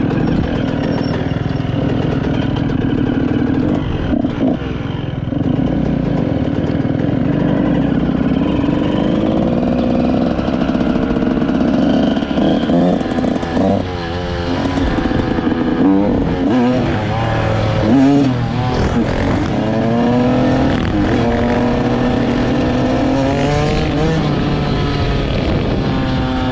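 Two-stroke motorcycle engine running under way, its pitch rising and falling again and again as the throttle is worked, more so in the second half.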